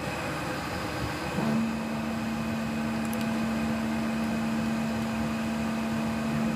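Steady running noise of server-room precision air-conditioning units and their fans. A steady low hum comes in about one and a half seconds in.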